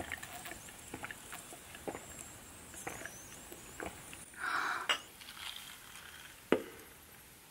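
Light, scattered pops and crackles from frankfurters grilling over charcoal on a shichirin's wire grill. A short rustling hiss comes a little past halfway, and a single sharp knock near the end.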